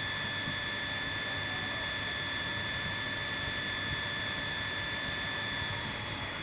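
A machine running steadily, a high-pitched whine over a rushing hiss, easing off slightly near the end.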